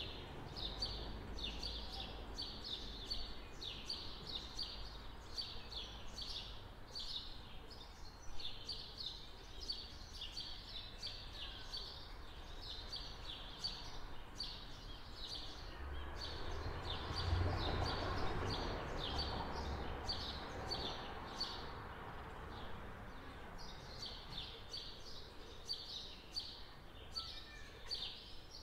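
Small songbirds chirping busily outdoors in quick repeated notes over steady background noise. A broad rushing swell of noise builds a little past the middle, is the loudest moment, and fades again.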